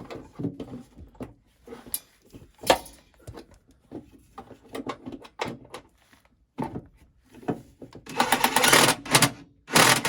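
Clicks and knocks of tools and metal hardware being fitted under a van, with a sharp knock about two and a half seconds in and a loud, fast rattling burst near the end.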